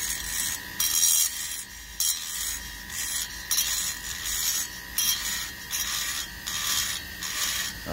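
Foredom flex-shaft rotary grinder running with a steady high whine while its bit grinds a port in a Husqvarna 50 chainsaw cylinder during porting. A scratchy grinding hiss comes and goes in short strokes, about one every half second to second.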